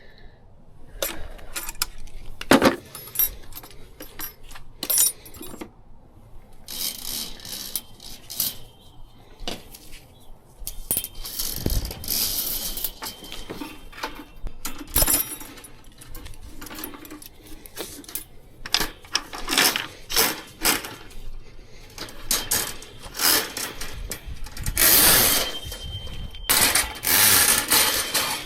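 Irregular metallic clinking, rattling and knocking of tools and equipment being handled, in uneven clusters with no steady motor running.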